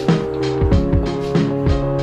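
Music with a beat: held synth chords over deep bass drum hits that drop in pitch.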